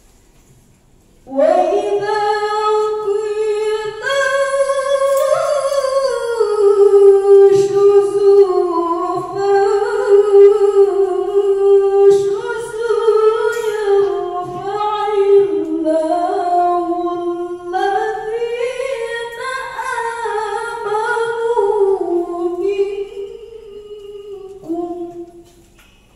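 A young woman reciting verses of the Quran in the melodic chanted style, one voice in long ornamented phrases with held, wavering notes. It starts about a second in, softens near the end and stops shortly before the end.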